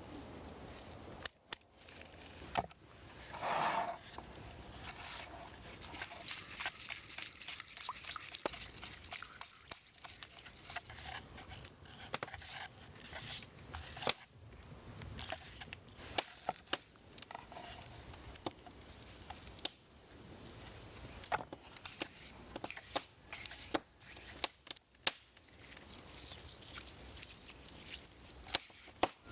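Hand food preparation: irregular clicks, taps and knocks of a knife and ingredients being handled, with a louder rustling, scraping stretch about three seconds in.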